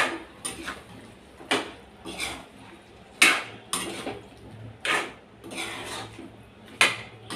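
Metal spatula scraping and clinking against a metal kadai as chunks of bottle gourd and chana dal are stirred, in a run of separate uneven strokes roughly every half second to a second.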